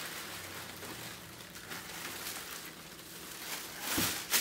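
Quiet rustling of tissue paper and styrofoam packing as a large plastic action figure is lifted out of its foam tray, with a louder rustle about four seconds in and a sharp click near the end.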